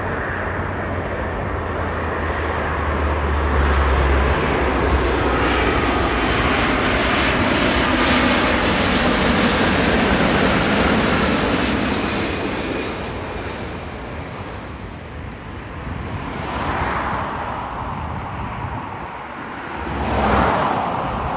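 A large jet airliner passes low overhead on landing approach: engine noise swells to a peak with a falling whine in it, then fades away. Near the end come two short passing whooshes.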